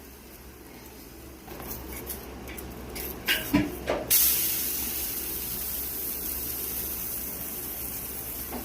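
A few utensil clinks against a pan, then a sudden steady sizzling hiss about four seconds in that slowly tapers off, as batter goes onto a hot griddle to cook patande.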